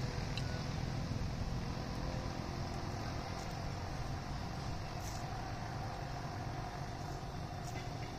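Steady low rumble of distant road traffic, with a faint engine hum joining about halfway and a few faint ticks.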